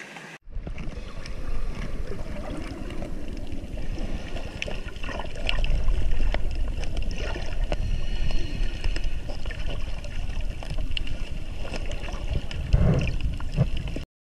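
Underwater sound picked up by an action camera submerged while snorkelling: a dense, muffled low rumble of moving water against the housing, with scattered faint clicks and a heavier thump near the end.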